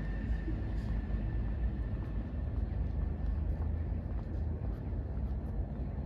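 Steady low rumble of street traffic, with a faint high whine that fades out about halfway.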